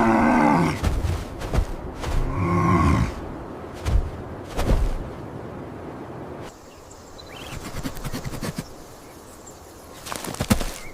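Animal calls: a pitched cry falling in pitch that ends about half a second in, a second shorter cry about two seconds in, then scattered sharp knocks and soft noise.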